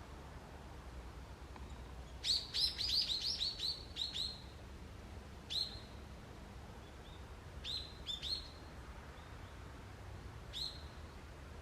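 A wild bird chirping in a forest: a quick run of about ten short, sharp chirps two to four seconds in, then single chirps at scattered intervals.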